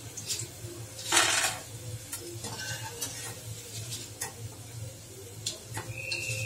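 Freshly fried boondi being tipped from a metal slotted ladle onto tissue paper: scattered clinks and scrapes of metal on the kadai, a short rustling rush about a second in, and a brief metallic ring near the end.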